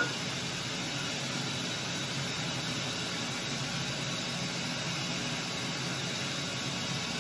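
Steady, even hiss of machine-shop background noise, with one short knock at the very start as an aluminium fixture plate is set down on the machining center's cast-iron table.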